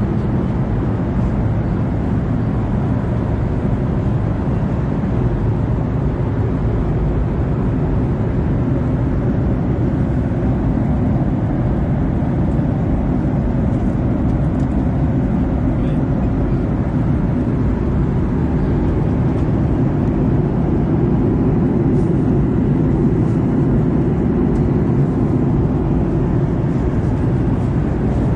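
Steady low roar inside the passenger cabin of a Boeing 737-800 airliner, even and unbroken throughout.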